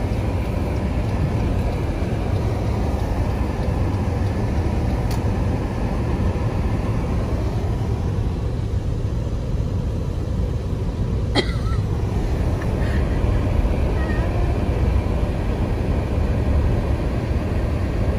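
Steady low rumble of a vehicle on the move, with a sharp click about five seconds in and another about eleven seconds in.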